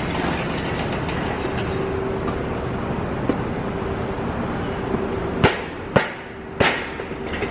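A machine or vehicle running steadily with a constant hum, with three sharp knocks a little over half a second apart near the end.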